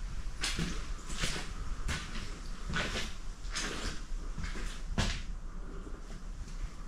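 Footsteps scuffing across a gritty basement floor at a walking pace, about one step every 0.7 seconds, with a sharper step about five seconds in.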